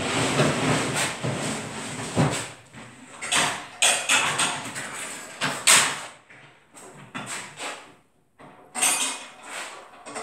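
A wooden table panel and its metal leg frame being handled and set up: a run of knocks, bumps and scrapes of wood and metal, busy at first and sparser in the second half.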